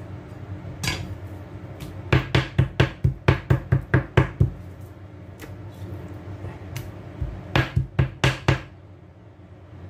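Back of a chef's knife pounding a raw pork chop on a wooden cutting board to tenderize it: a single knock about a second in, then a quick run of about a dozen knocks at roughly five a second, and a shorter run of about six near the end.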